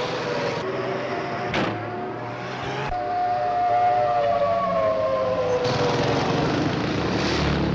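Air-raid siren wailing, its pitch sliding slowly downward over a rushing background noise, in an old wartime newsreel recording.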